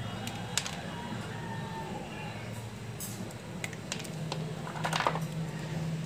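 Small scattered clicks and rustles of hands twisting and handling electrical wires, with a cluster of clicks about five seconds in, over a steady low hum.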